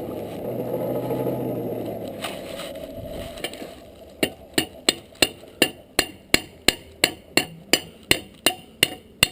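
A steady low rushing of the forge for the first few seconds. About four seconds in, a hand hammer starts striking hot steel on the anvil, even blows about two to three a second, each with a short metallic ring, to weld and blend in the joint.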